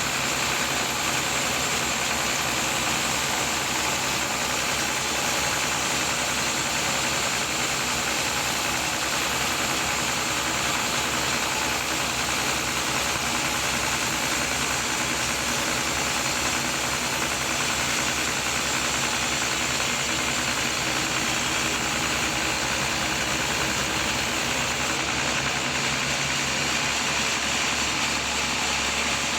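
Sawmill machinery running steadily, an engine-driven saw with an even, unchanging engine note.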